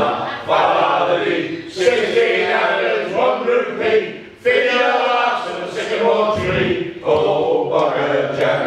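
Group of men singing together unaccompanied in rough unison, in short sustained phrases with brief pauses between them.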